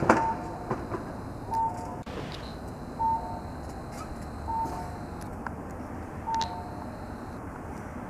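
A sharp click, then a two-note electronic beep, a higher note followed by a lower one, repeating about every one and a half seconds over steady street hum.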